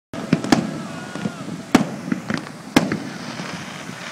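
Fireworks going off: three loud, sharp bangs at about half a second, just under two seconds and nearly three seconds in, with smaller pops and crackles between them.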